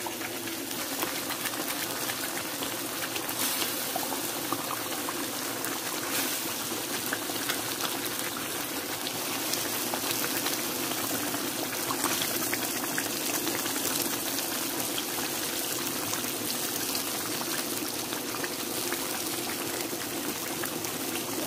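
Thick tomato stew simmering in a frying pan: a steady bubbling hiss dotted with small pops.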